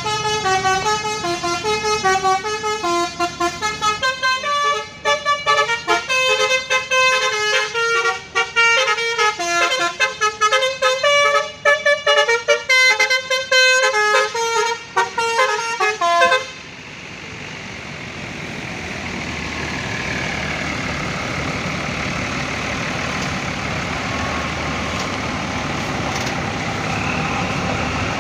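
Bus telolet horn, a set of trumpet horns switched in sequence, playing a fast melody of short stepping notes for about sixteen seconds and then stopping abruptly. A steady noisy background carries on after it.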